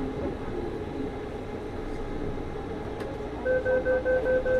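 Steady running hum of a Taipei Metro Wenhu line train. About a second before the end, a rapid electronic beeping starts, about five beeps a second, typical of a metro train's door-closing warning.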